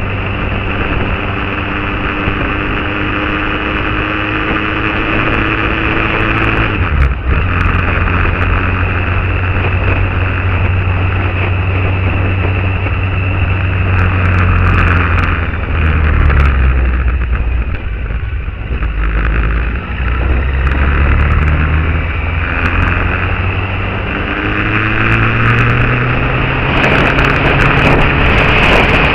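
Motorcycle engine running under way, its note slowly rising and then dropping or stepping several times as the speed changes, with a steady rush of wind on the microphone.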